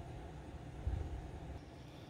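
Low rumbling handling noise and dull knocks as hands work small brass knife-handle parts over a wooden workbench, loudest about a second in.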